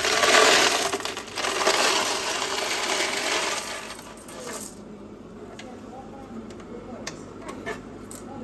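A mass of coins pouring and rattling together for about four seconds. Then it drops to a few separate coin clinks.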